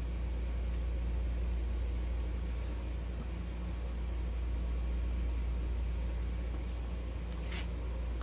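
Steady low hum with a few light metallic clicks, the sharpest near the end, as aluminum rocker arms are worked onto the rocker shaft of a Honda J32A2 cylinder head.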